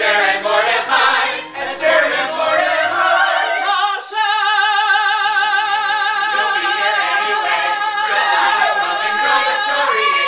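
A small mixed group of men and women singing together in harmony, sung lines at first, then from about four seconds in a long held chord with vibrato that ends near the close.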